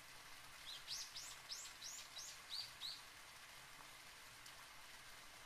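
A bird sings a quick phrase of about seven high arched notes, each rising and then falling, about three a second, that ends around the middle. A faint steady hiss lies under it.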